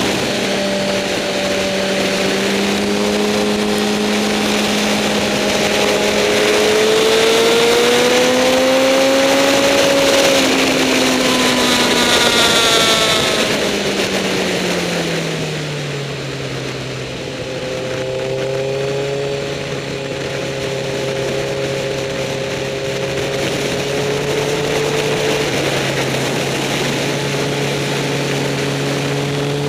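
Suzuki GSX-R sportbike's inline-four engine under way, over a steady rush of wind. Its pitch climbs to a peak about ten seconds in, drops sharply as the bike slows, holds low and steady through the middle, and starts rising again near the end.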